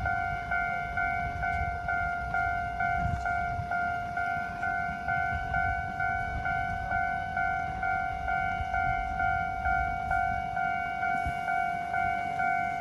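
Japanese level-crossing warning bell ringing at about two strikes a second, each strike a single electronic ding that fades before the next: the crossing is closed for a train. A low rumble sits underneath.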